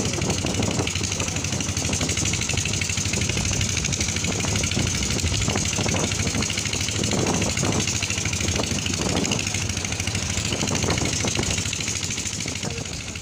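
Engine of an open motorised cart running steadily as it drives along, with wind and road noise rushing over the microphone; the sound fades out near the end.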